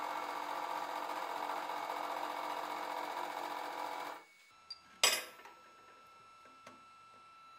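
Hydraulic press running with a steady mechanical hum as its ram squeezes pliers jaws onto a steel piece. The hum stops a little after four seconds, and about a second later there is one sharp metallic knock.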